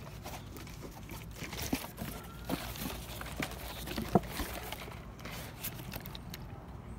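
Footsteps on concrete with scattered light clicks and knocks, as of something being carried and handled.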